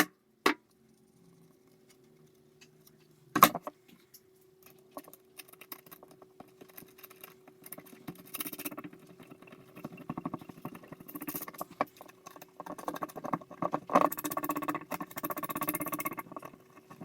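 Small clicks, taps and rattles of hard objects being handled, sparse at first and busier in the second half, over a faint steady hum; one sharp knock about three seconds in.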